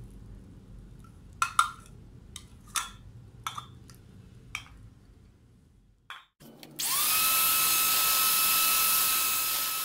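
A few light knocks, then about seven seconds in an electric hand mixer switches on: its motor whine rises quickly to a steady pitch as the beaters whisk the liquid cake batter.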